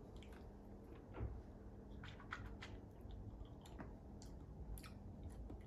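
Faint, irregular wet lip smacks and tongue clicks from a person tasting hot sauce, with a soft low bump about a second in.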